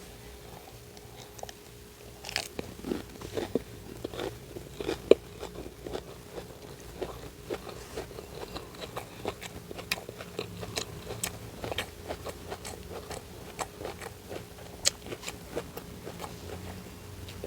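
Close-miked biting and chewing of an English muffin sandwich filled with chopped deviled egg and lettuce: many irregular wet clicks and smacks of the mouth, starting about two seconds in.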